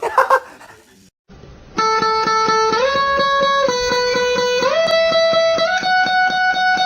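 Music: a held melody that steps up and down in pitch over a steady quick pulse, starting about two seconds in after a brief sharp knock at the start.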